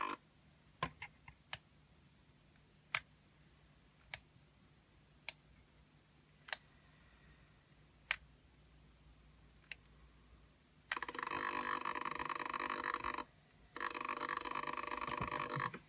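Servo motor driving the InMoov robot's 3D-printed stomach joint, whirring in two runs of about two seconds each with a short pause between them near the end. Before that there are scattered light clicks about once a second.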